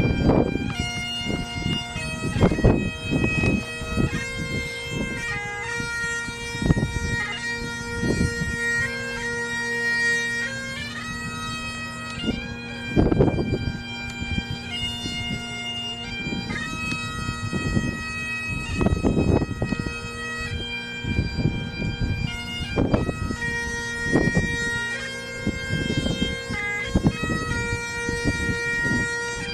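Highland bagpipes playing a tune over a steady drone. Several brief bursts of low rumble from wind on the microphone break in.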